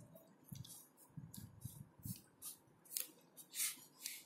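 Pen scratching on paper: a faint string of short, uneven strokes as lines are drawn.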